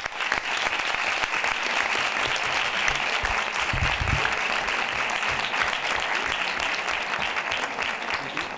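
Audience applause: many people clapping in a dense, steady patter that starts at once and tapers off near the end.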